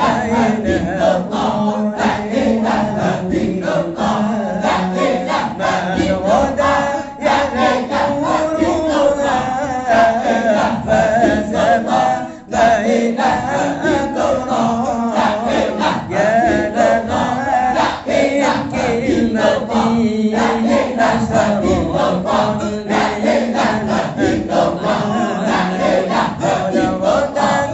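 Islamic dzikir chanted by several voices in unison, a continuous sung recitation with a brief pause about halfway through.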